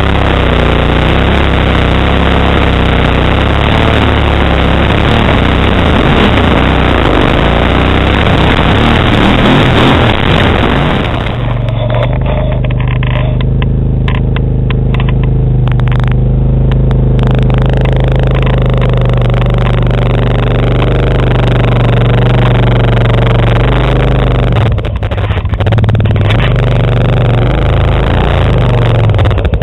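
Kawasaki Brute Force 750 ATV's V-twin engine with Muzzy exhaust running under load over a rough forest trail, loud and mixed with wind and bumping noise. About eleven seconds in it changes to a steady engine note while another ATV drives across rough ground and climbs through brush.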